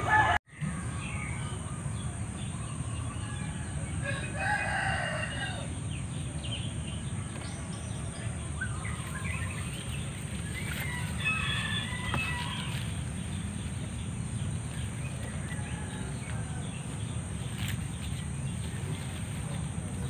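A rooster crowing about four seconds in, and another rooster-like call around eleven seconds, over a steady low rumble. There is a brief dropout just after the start.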